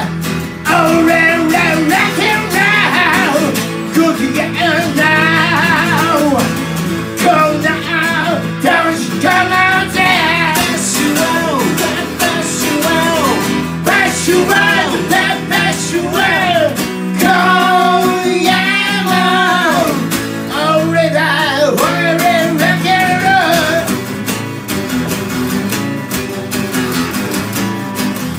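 Live acoustic duo: two acoustic guitars strummed and picked under singing, a rock-blues song played through a small PA.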